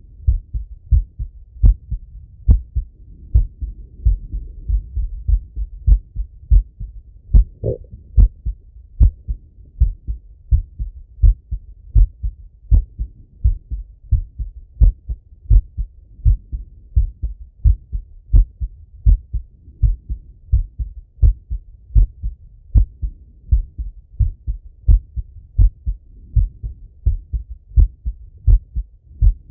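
A man's heartbeat heard through a Littmann stethoscope after a workout set: steady, regular lub-dub heart sounds following each other quickly and evenly.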